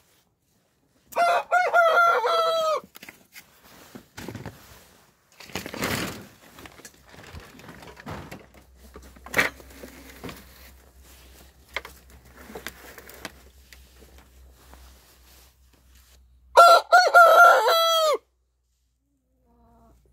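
Rooster crowing twice, two long loud cock-a-doodle-doos, one about a second in and one near the end, each ending in a held, dropping note. Quieter knocks and rustles come between the crows.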